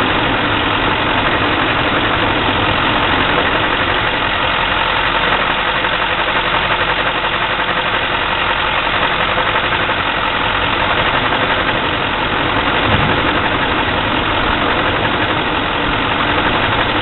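GMC 6.6-litre Duramax V8 diesel idling steadily, an idle that the owner calls rough.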